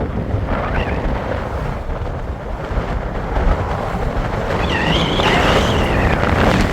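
Car driving at speed: steady low road rumble with wind buffeting the microphone.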